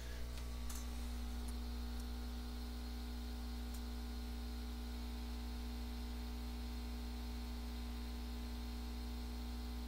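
Steady electrical mains hum, buzzy with many evenly spaced overtones, with a few faint ticks in the first few seconds.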